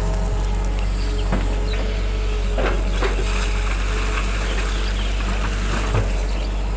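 Excavator's diesel engine running steadily, with a few short knocks and clanks from the machine at work, about four in all.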